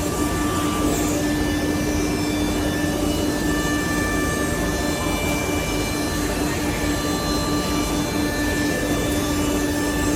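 CNC nesting router running: a steady whine over a dense mechanical rush, with fainter higher tones coming and going.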